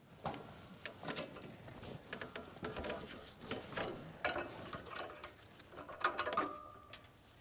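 A heavy black locust slab being handled on a sawmill's steel bed: irregular scrapes, rustles and knocks of wood and bark against steel, with the loudest knock about six seconds in, followed by a short squeak.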